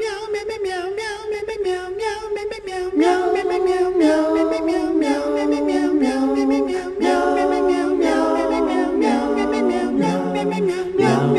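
Intro music of a cappella choral singing: sustained vocal notes, joined about three seconds in by more voices singing chords that change roughly once a second.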